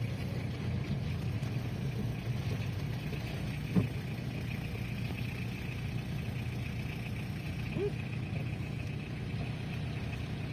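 Steady engine and road rumble of a car heard from inside the cabin while driving, with a short knock just under four seconds in.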